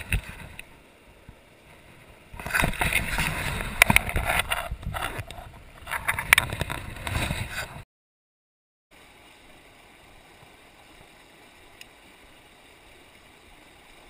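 Fast mountain river rushing over rocks, heard as a steady hiss. For a few seconds near the start, loud rough noise with sharp clicks sits close to the microphone. The sound then cuts out for about a second before the even river noise returns.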